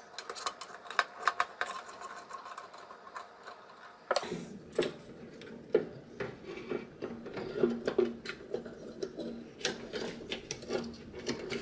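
Scattered light clicks and rattles of hands handling wiring and crimped spade connectors inside an espresso machine's metal housing.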